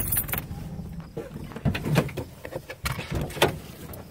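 Handling noise of a phone moved about against a nylon bag inside a vehicle's cab: scattered knocks, bumps and rustles.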